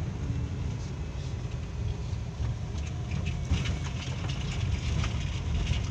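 Inside a moving car's cabin: steady low engine and road rumble, with scattered light clicks and rattles from about halfway through as the car drives on a rough dirt road.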